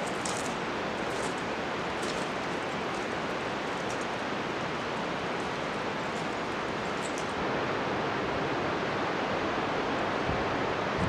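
Steady rush of a glacial meltwater river, an even hiss of flowing water that gets slightly louder about two-thirds of the way in. A few faint high clicks sound over it.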